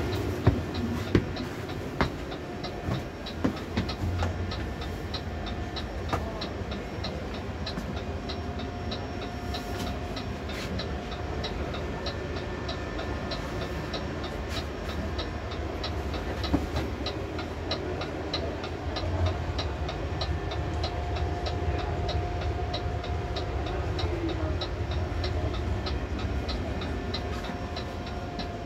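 A few sharp knocks in the first few seconds, then a steady, rapid ticking, about two to three ticks a second, over a low steady hum.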